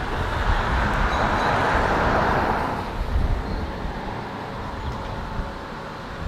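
Wind gusting ahead of a thunderstorm, buffeting the microphone with an uneven low rumble; a gust swells and fades in a whoosh over the first three seconds.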